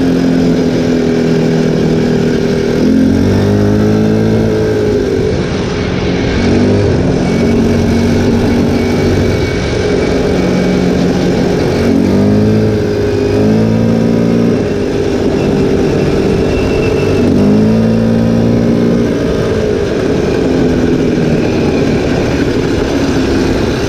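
ATV engine running under way, its pitch sweeping up and down several times as the engine speed changes, over a steady rush of noise.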